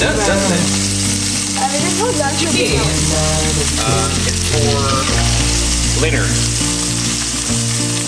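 Chicken sizzling as it fries in a skillet on a gas stove, a steady frying hiss, over background music with a low bass line and a singing voice.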